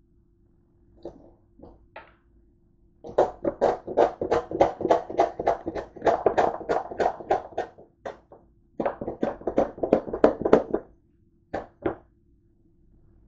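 A plastic squeeze bottle of salad dressing shaken hard upside down, giving quick dull knocks about four or five a second in two bouts, then two single knocks near the end.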